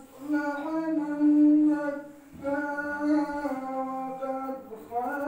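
A single voice chanting a melodic religious recitation in long held, ornamented phrases, with a short pause for breath about two seconds in.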